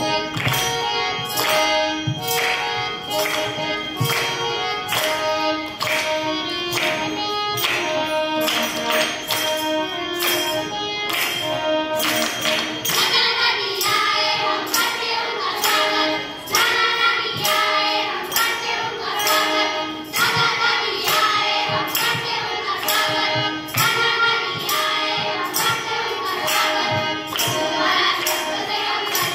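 A group of children singing a song together to musical accompaniment with a steady percussion beat.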